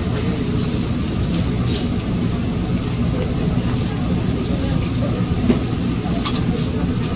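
A steady low rumble of street background noise, with a couple of light clicks from metal tongs turning fish on a briquette-fired grill grate.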